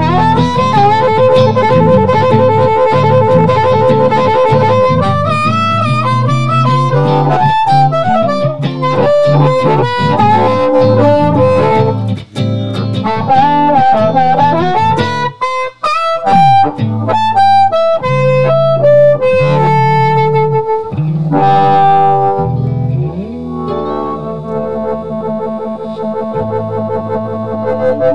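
Amplified blues harmonica solo, the harp cupped against a handheld bullet microphone, over electric guitar accompaniment. It plays long held notes and notes bent up in pitch.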